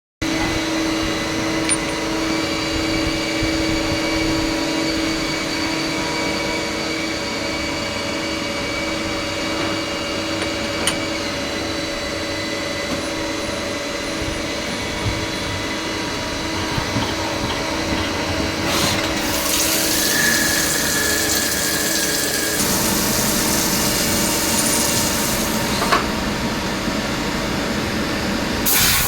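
CNC machine running: a steady machine hum with several held whining tones, joined twice by a loud hissing spray lasting a few seconds, about two-thirds in and again near the end.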